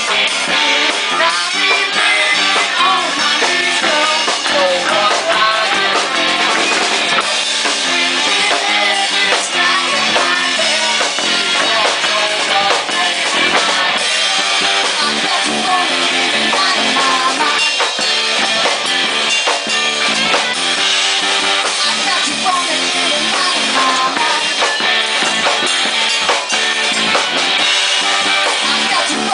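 Live rock/funk band playing an instrumental passage: drum kit with snare and bass drum keeping a steady groove under electric guitar and bass.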